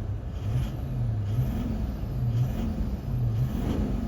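Toyota Land Cruiser 200's 1VD-FTV V8 diesel engine running with the fuel cut to injector number 7, its note swelling and fading about once a second. The knock has gone with that injector cut out, which points to injector 7 as the source of the knock.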